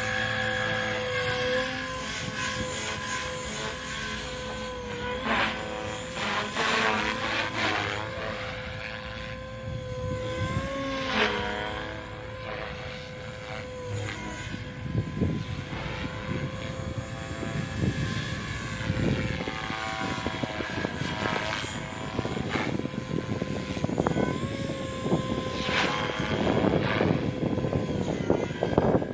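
A small propeller aircraft's engine droning, its pitch wavering and sweeping up and down several times as it moves about, with gusts of strong wind on the microphone.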